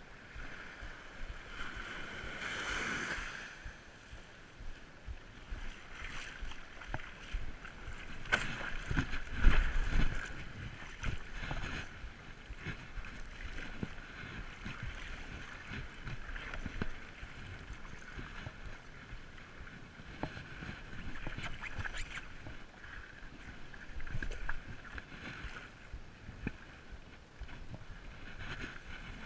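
Paddling a stand-up paddleboard: water splashing and lapping around the paddle and board, picked up by a chest-mounted action camera, with scattered knocks and a loud low thump about nine seconds in.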